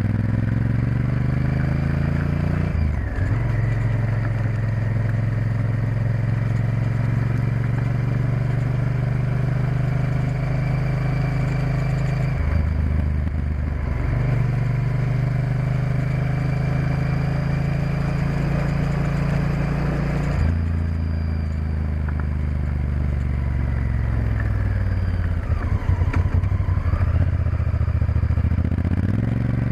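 Honda Varadero XL1000's V-twin engine running under way. Its note steps to a new pitch several times as the revs change, and near the end the revs drop away and then climb again.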